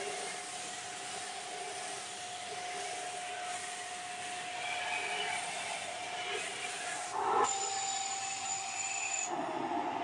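Shark NV601UK Lift-Away vacuum cleaner running with a steady whine, sucking polystyrene beanbag beads up through its metal wand. A little past seven seconds in there is a brief burst and the whine steps slightly higher, and near the end the high hiss drops away.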